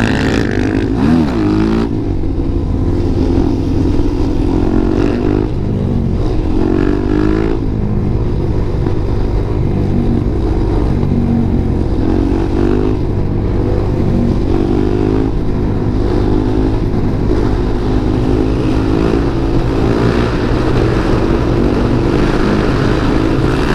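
Suzuki DR-Z400SM supermoto's single-cylinder four-stroke engine under way, its pitch climbing through each gear and dropping at each shift several times over.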